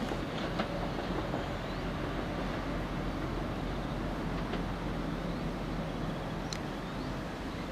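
Southern Class 377 Electrostar electric multiple unit running towards the listener over pointwork: a steady rumble of wheels on rail with a low hum and a few light clicks.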